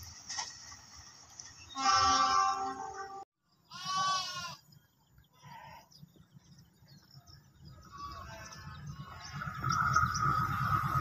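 A loud held pitched call about two seconds in, cut off abruptly, then a goat bleating once in a wavering voice. Near the end, the low rumble of an approaching diesel train builds, with a steady high whine over it.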